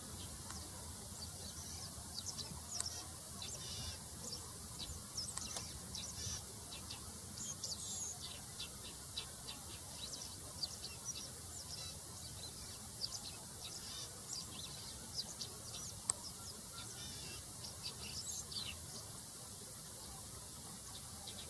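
Meadowlark singing: a run of short, high chirps and buzzy notes, irregularly spaced, that stops a couple of seconds before the end, over a steady background hiss.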